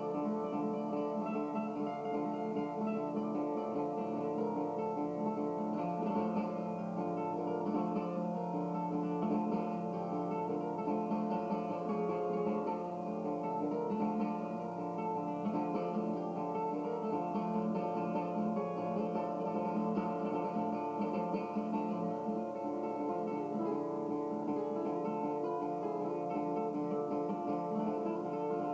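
Acoustic guitar playing live, a continuous run of plucked notes over ringing strings at an even level.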